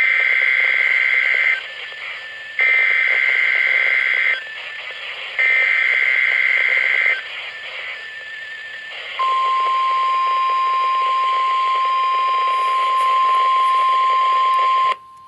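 NOAA Weather Radio alert broadcast heard through a weather radio receiver's speaker, over radio hiss. First comes the SAME coded header, three screechy, warbling data bursts of about a second and a half each with a short gap between them, which signal receivers to switch on. About nine seconds in the steady single-pitch warning alarm tone starts and holds for about six seconds, sent as the routine weekly test.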